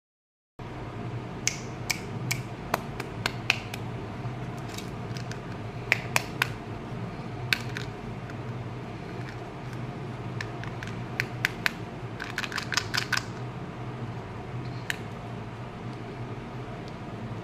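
Small plastic toy suitcase candy case being handled and unlatched: sharp plastic clicks and taps, scattered singly at first, then a quick run of clicks about twelve seconds in as the lid is worked open. A steady low hum runs underneath.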